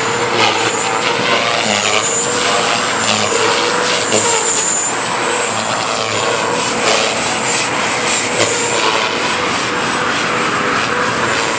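JR Forza 450 RC helicopter in aerobatic flight: a steady high-pitched motor and gear whine over the rotor's tone, which wavers slightly as the helicopter manoeuvres.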